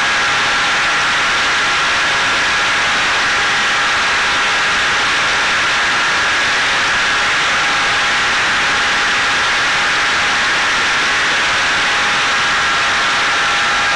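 Electric motor and pusher propeller of a Caipirinha 2 flying-wing drone in steady cruise, heard from the onboard camera: a steady whine of a few held tones over heavy wind rush.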